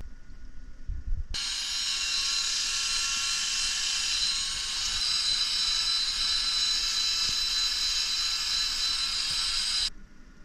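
Metabo cordless drill spinning an abrasive disc against a power cable's metal sheath, a steady high hiss of scuffing. It starts about a second in and cuts off suddenly near the end.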